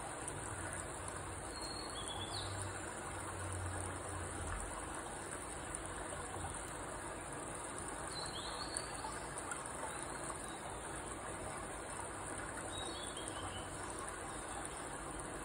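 Steady high-pitched insect chorus over a constant hiss, with a bird giving short descending chirps now and then.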